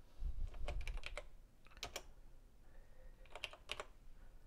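Keystrokes on a TRS-80 Model 100's keyboard, typed on the freshly repaired keys: a quick run of clicks about a second in, two more near two seconds, and another short run a little past three seconds.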